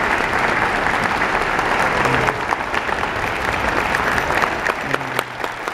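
Concert audience applauding: dense, steady clapping from a large crowd in a hall.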